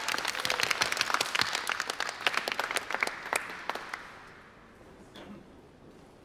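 Small seated audience clapping, the applause thinning out and dying away about four seconds in.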